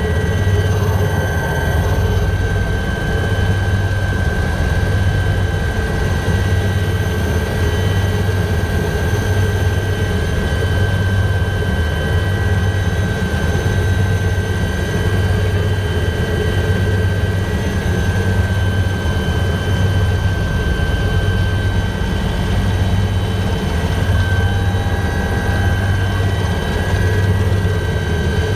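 Helicopter in flight: a steady rotor beat with engine noise and a steady high whine.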